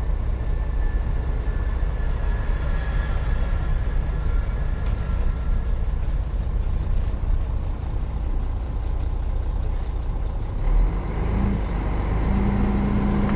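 A truck engine running steadily with a low rumble. About three-quarters of the way through there is a brief low thump, and the engine note rises and holds steady at a higher pitch.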